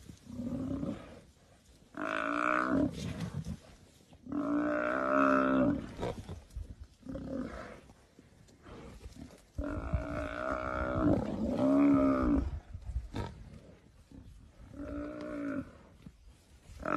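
African buffalo bellowing in distress while lionesses hold onto it: a series of about six drawn-out, wavering moaning calls, the longest near the middle.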